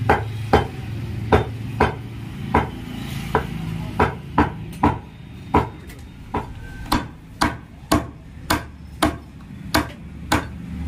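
Heavy butcher's cleaver chopping mutton on a round wooden log chopping block: a steady run of sharp chops, about two a second, over a low hum.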